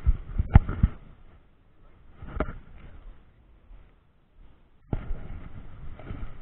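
A quick run of sharp knocks and clicks, the loudest about half a second in and one more about two and a half seconds in, then a steady rushing noise that starts suddenly about five seconds in.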